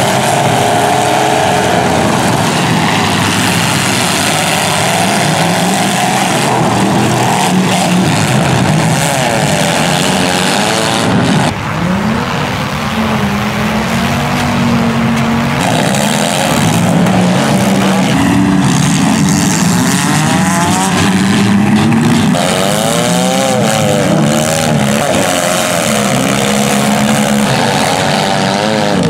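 Several demolition derby cars' engines revving hard together, their pitches wavering up and down over a dense, loud, steady wash of noise, with a brief cut about eleven seconds in.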